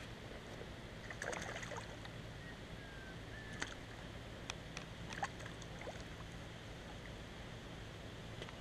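Faint water sounds of a hooked trout splashing at the surface close to the bank, with a few soft clicks over a low steady background noise.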